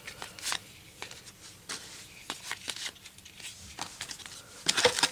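Paper trading cards and a foil card pack handled in the hands: light rustling and soft card flicks, with a louder burst of crinkling near the end.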